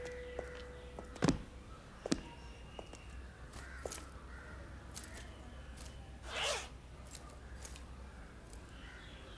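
Small handling sounds of a bag and papers: two sharp clicks about a second and two seconds in, scattered light ticks, and a short zip about six and a half seconds in, over a low steady hum.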